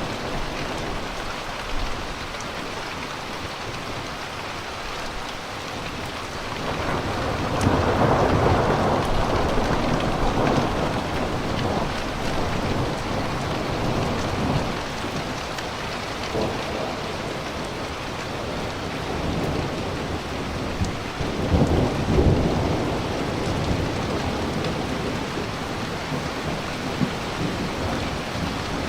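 Steady rain falling, with thunder rumbling overhead: a long rolling rumble swells about seven seconds in, and a second, sharper peal comes about three-quarters of the way through.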